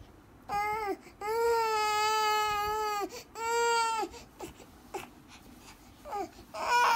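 An infant crying in wails: a short cry, then a long held wail of about two seconds, another short cry, and a fresh wail starting near the end, with quiet catches of breath between.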